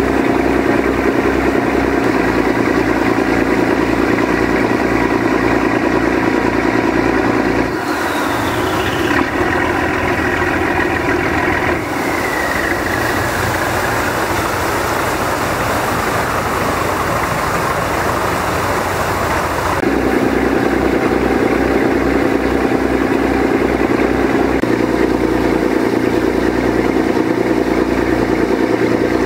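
Motorboat engine running loud and steady under way, with water rushing past. For a stretch in the middle the engine note changes and a hiss comes up, with a whine slowly falling in pitch, before the steady engine sound returns.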